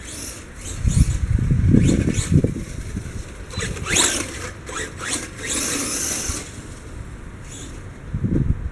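Blackout XTE Pro RC truck driving across grass close by, its motor whining as it accelerates about four seconds in and again around six seconds, with low thumps of the truck bouncing over the ground earlier.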